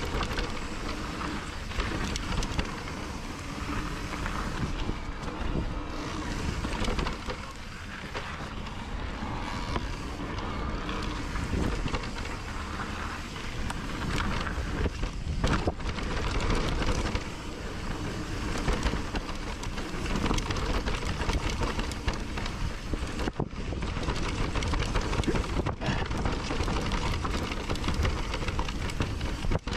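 Trek Rail 7 electric mountain bike ridden along a dirt singletrack: a steady rush of tyres on dirt and wind on the microphone, with frequent knocks and rattles from the bike over bumps.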